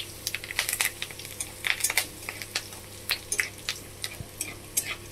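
Mustard seeds, cumin, chana dal and curry leaves sizzling in hot oil in a kadai, with sharp irregular crackles and pops several times a second. A steel spatula stirs the tempering.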